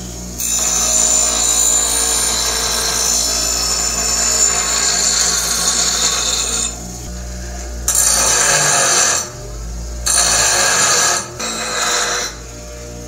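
Bench grinder wheel grinding a steel adze head, a long continuous pass followed by three shorter passes, with the grinder motor humming steadily between them.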